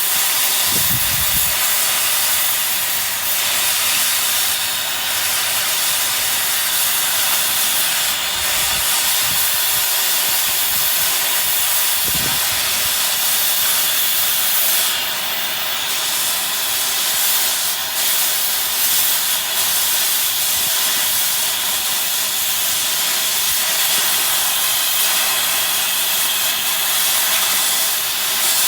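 Steady loud hiss of a gas torch flame, heating a stuck lawnmower wheel rim to free it, with a few dull low thumps about a second in, around eight seconds and around twelve seconds.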